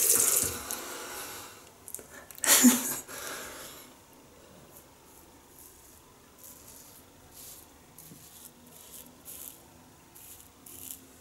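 Running tap water cuts off at the start, and a short louder noise comes about two and a half seconds in. Then come faint short scrapes, about one or two a second, of a 1930s Gillette "New" long-comb double-edge safety razor cutting lathered stubble on the jaw and neck.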